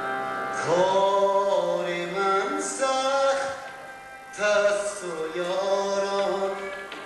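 A man singing long, held phrases over a steady harmonium drone; the voice comes in about half a second in.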